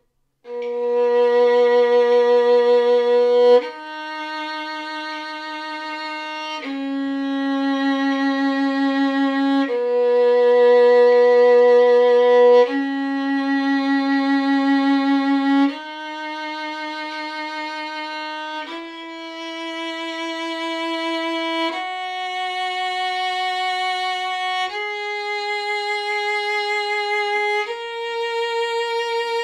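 Solo violin playing a B major scale slowly, one long bow stroke per note, each note held about three seconds, climbing higher in the second half.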